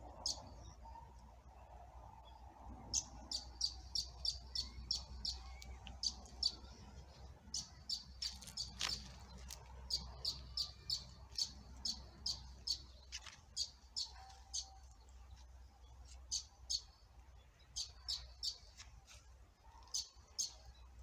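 Birds chirping: short, high chirps repeated a few times a second in runs, with brief pauses between the runs.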